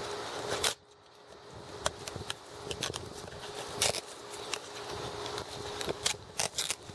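Scattered clicks, taps and scraping of hands working on an old car door speaker, pulling and peeling material off it, over a faint steady hum.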